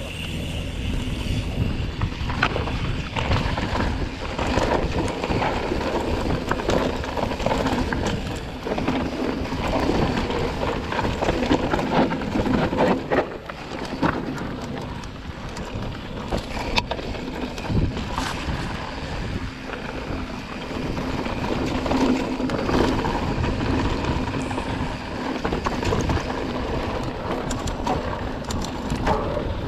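Mountain bike descending a rocky dirt trail: tyres rolling over dirt and stones, with frequent knocks and rattles from the bike over the bumps and wind buffeting the microphone.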